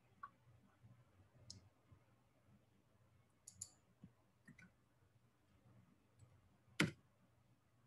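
Faint, scattered clicks of computer keyboard keys being typed, with one sharper, louder click near the end.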